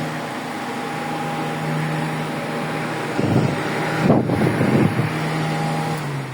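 Mondial VT-40-B 40 cm six-blade table fan running: a steady motor hum over a rush of air, with an uneven, louder patch in the middle. Near the end the hum drops in pitch as the fan slows down.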